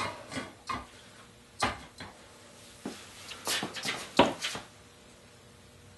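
A 1095 steel blade clamped in a vise creaks and cracks as it is levered over toward 90 degrees with a steel pipe. The sound is a run of sharp clicks and snaps: a few spread out at first, then a tighter cluster between about three and a half and four and a half seconds in. The blade held, and no crack could be seen in it afterwards.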